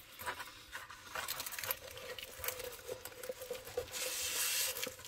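A diamond painting canvas being rolled up by hand: the stiff canvas and its plastic cover film crackle and rustle in many small irregular clicks, with a longer smooth rustle about four seconds in.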